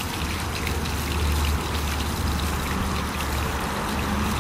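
Water running and splashing over a cast-iron manhole cover and the pavement around it during an infiltration test, a steady rushing with a constant low rumble underneath.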